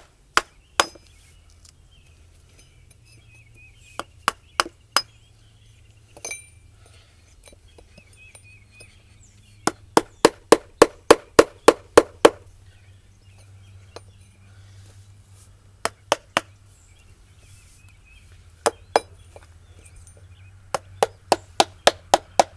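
Mallet striking a carving chisel into a wooden log: sharp hits in bursts, a few scattered blows, then a quick run of about ten at roughly four a second, a pause, and another run starting near the end.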